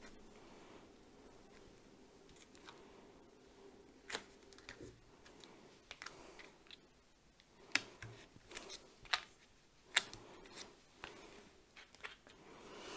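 Soft handling noise and a scattering of short, sharp clicks and taps as a clear stamp on its plastic sheet and a piece of cardstock are lifted, pressed and set down on a cutting mat, over a faint steady hum.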